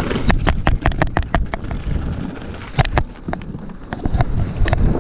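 Downhill mountain bike clattering over a rocky trail: a quick run of sharp knocks from the wheels, chain and frame, with more knocks around three seconds in and near the end. A low rumble of wind on the microphone runs under it.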